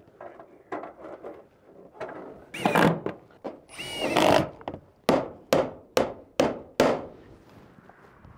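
Sheet-metal roof flashing being handled and pushed into place, rattling and scraping with a brief squeal. Then five quick, evenly spaced hammer blows, a little under half a second apart.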